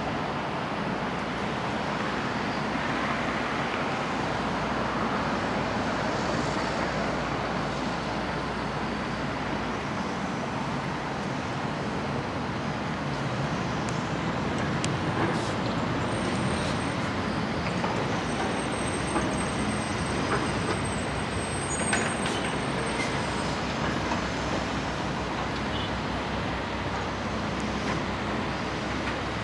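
Heavy diesel engines of a John Deere 225D excavator and a Peterbilt triaxle dump truck running steadily, with a few sharp clanks about halfway through.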